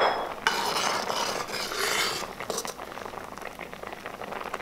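Steel ladle stirring and scraping through simmering milk in a stainless steel kadai. The scraping is louder for about the first two seconds, then eases to a quieter stirring with faint small clicks.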